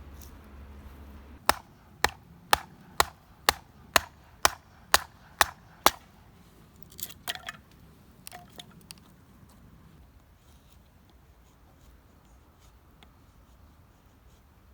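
A run of ten sharp, evenly spaced strikes, about two a second, followed by a few fainter clicks.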